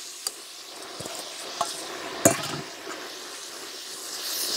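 Red onions sizzling in caramelised brown sugar in a small pot as they are stirred in, with a few sharp knocks of the stirring utensil against the pot, the loudest a little over two seconds in.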